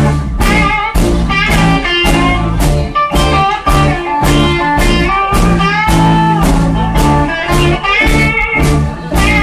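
Live blues band playing an instrumental: a guitar melody with gliding notes over rhythm guitar, bass and drums, with a steady beat of about two strokes a second.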